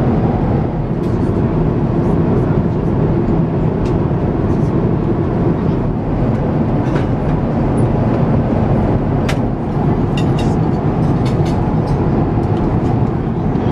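Steady cabin noise of an Airbus A350-1000 in cruise, the low rumble of airflow and engines heard from a seat in the cabin, with a few faint clicks scattered through it.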